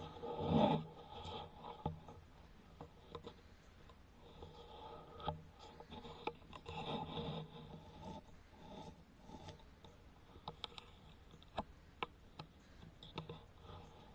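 Faint rubbing and scraping handling noise, with a louder rustle about half a second in and again midway, and a scatter of short sharp clicks in the later part as the camera is moved and steadied.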